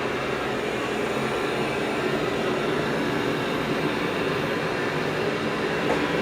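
Dreame L20 Ultra robot vacuum and mop running with a steady, even mechanical hum as it sets off from its base station with its mop pads on.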